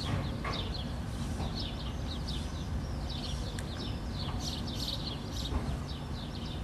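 Many small birds chirping in short, rapid, overlapping calls, over a low steady hum.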